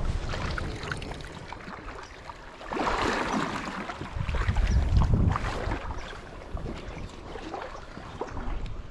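Wind rumbling on the microphone over the sound of moving river water, louder from about three to five and a half seconds in.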